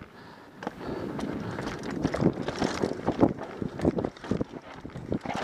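Mountain bike rolling fast downhill over dirt and rocks: tyres crunching and the bike clattering over irregular bumps, with wind rushing over the microphone.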